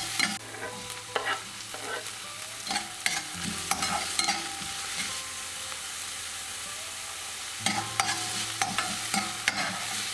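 Onion, garlic and tomato sizzling in oil in a stainless steel frying pan, with a spatula scraping and clicking against the pan in spells as the mix is stirred, and a quieter stretch of plain sizzling in the middle.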